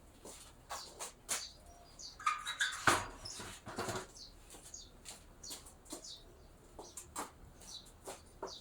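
Small animal chirping: short, high, falling chirps scattered irregularly among light clicks, with a louder rustling cluster about three seconds in.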